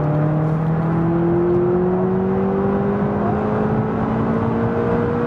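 McLaren 570GT's twin-turbo V8 pulling hard in one gear under the automatic gearbox, its revs climbing slowly and steadily, over road and tyre noise.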